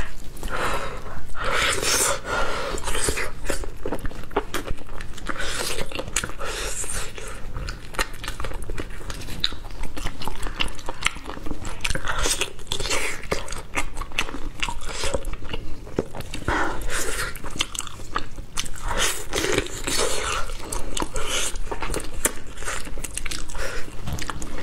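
Close-miked mouth sounds of a person biting and chewing braised meat on the bone: wet, sticky bites and chewing with many small clicks and smacks, going on throughout.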